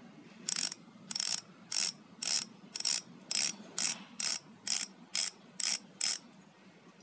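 KOOZER MF480 rear hub's DT-style ratchet freehub spun backward by hand in short twists, giving about a dozen quick buzzes of freewheel clicking, roughly two a second. The buzzes stop about a second before the end.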